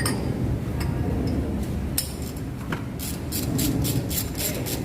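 Metal hand tools clinking during spark plug work: one sharp click about two seconds in, then a quick run of about eight clicks near the end, over a steady low rumble.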